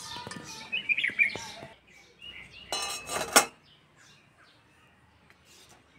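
A metal spoon clinking and scraping against a metal cooking pot and serving bowl, with scattered light clinks and one loud ringing clink about three seconds in. Birds chirp faintly.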